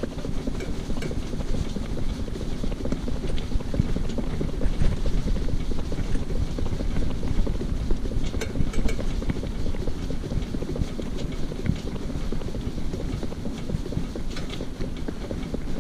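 Shetland pony pulling a cart along a tarmac road: a steady low rumble of the cart's wheels and the pony's hooves, with wind buffeting the microphone.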